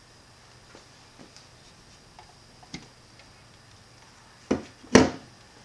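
A few faint scattered clicks and a sharper tick, then two loud knocks about half a second apart near the end.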